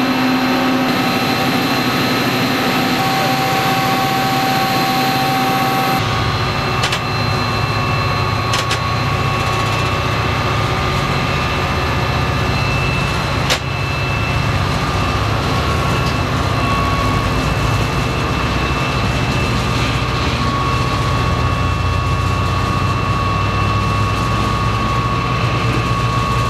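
Diesel commuter locomotive engine running steadily. About six seconds in the sound changes to a heavier, deeper rumble, as heard inside the cab, with a few sharp clicks.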